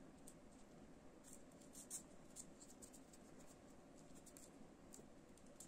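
Faint rustling and light clicks of paper being handled as it is wrapped around an ice-cream stick, over quiet room tone.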